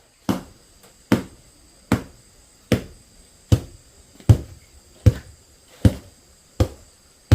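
Regular, evenly paced strikes, about one every 0.8 seconds, each a sharp thud that dies away quickly, like a tool repeatedly hitting something solid.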